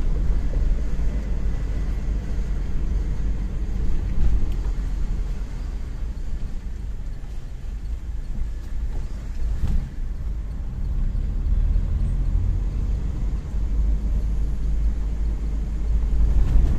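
A car driving, heard from inside the cabin: a steady low rumble of engine and tyres on the road, with a single knock partway through.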